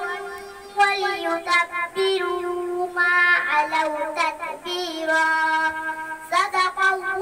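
A girl's voice reciting the Quran in the melodic tajweed style, drawing out long held notes that glide and turn slowly in pitch.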